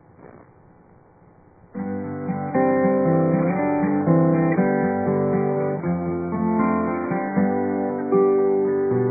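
Guitar music starting suddenly about two seconds in and playing on, with plucked and strummed notes, after a faint low hum.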